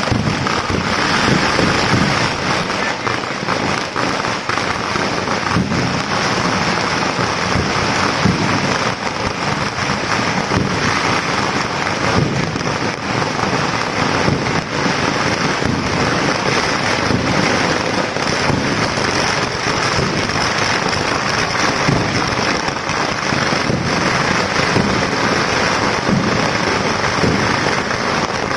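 A long barrage of firecrackers going off in very rapid succession, a dense continuous crackle that never pauses.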